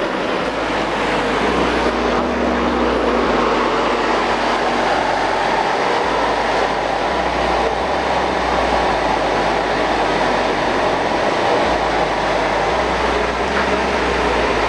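Car-audio subwoofers in a GMC SUV, JL Audio woofers driven by a JL Audio 1000/1 amplifier, playing very loud deep bass that holds a low note for a few seconds at a time and then shifts to another, with a dense noisy wash over it.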